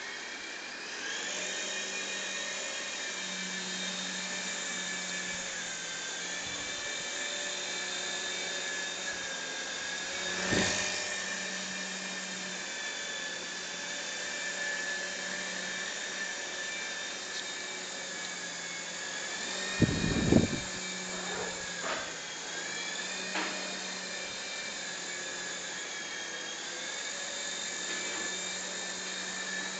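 Mini 4-channel RC helicopter's small electric motors and rotors whining steadily in flight, the pitch dipping briefly a couple of times in the last third. A short knock about ten seconds in, and two sharp, loud knocks about twenty seconds in.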